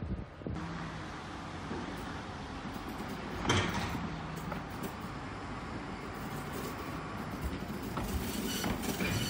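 Hyundai Rotem hydrogen fuel-cell electric tram rolling slowly over a level crossing: steady wheel-and-rail running noise with a low hum, and one louder sudden clack about three and a half seconds in.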